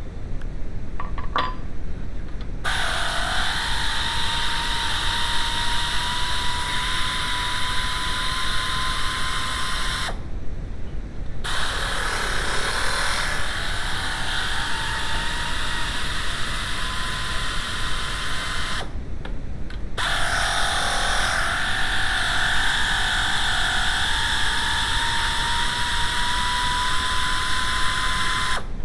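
A handheld power tool's electric motor running in three long runs of about eight seconds each. Its whine rises slowly in pitch through each run, then cuts off sharply.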